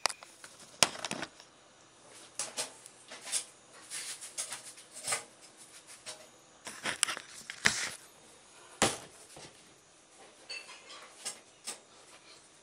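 Irregular knocks, clicks and rustles of things being handled close to the microphone, a dozen or so sharp ones scattered among softer rustling.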